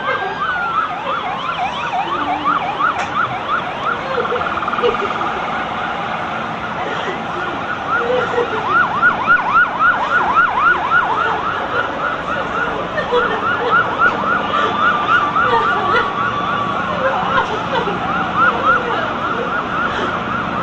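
Several emergency-vehicle sirens sounding at once, mostly fast repeated yelping sweeps. A slow wail rises and falls at the start, and another long drawn-out wail comes about three-quarters of the way through.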